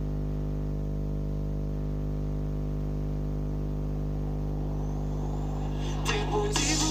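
Steady low hum, unchanging in pitch and loudness; music starts up near the end.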